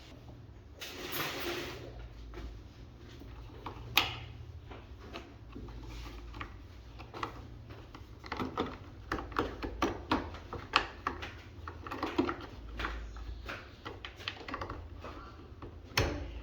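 Irregular clicks, taps and knocks of hard objects being handled, with a short rustle about a second in, a sharp knock about four seconds in and another near the end.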